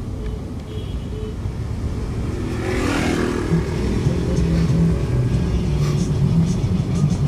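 Car engine and road noise heard from inside the cabin while driving, a low steady rumble. About three seconds in it grows louder and a steady low engine drone sets in.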